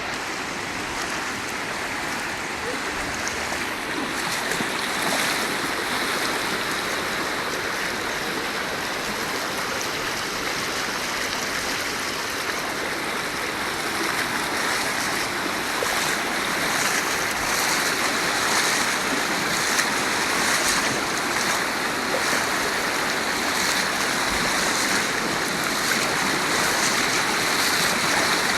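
Floodwater rushing and flowing steadily.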